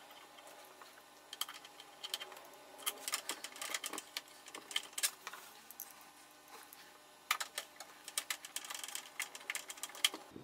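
Screwdriver driving the screws that hold a graphics card's bracket to the PC case: two spells of rapid small metallic clicks and ticks, the second starting about seven seconds in.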